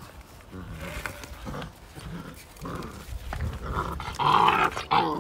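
A group of fifty-day-old Belgian Malinois puppies growling as they tug together on one bite toy, louder about four seconds in.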